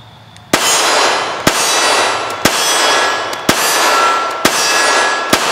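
Six shots from a Remington RM380 .380 ACP pocket pistol, fired about one a second, each followed by a long ringing decay.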